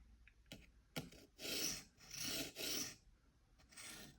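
A few short scraping strokes of a sharpening stone drawn across a pocket-knife blade held in a guided-angle sharpener, with a couple of light clicks before them. The strokes test the newly set angle on the second side of the blade.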